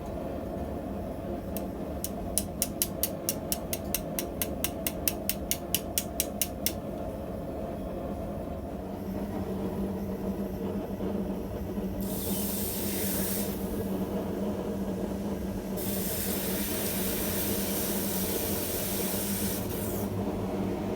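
Workshop tool work: a quick run of about two dozen light, evenly spaced clicks over a few seconds, then a steady machine hum with two long stretches of hissing, grinding-like noise.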